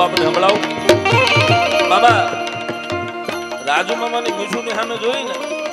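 Man singing a Gujarati folk song in long, wavering melodic runs, accompanied by a harmonium and tabla.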